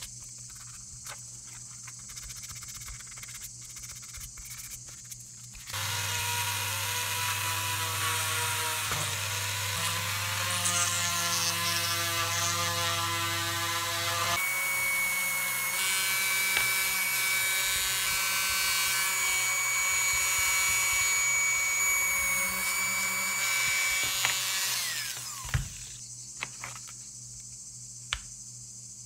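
Handheld rotary tool running steadily for about twenty seconds, its bit grinding at the red plastic slot car body; the pitch of its whine changes abruptly about halfway through. Small handling clicks come before it starts, and a few knocks after it stops.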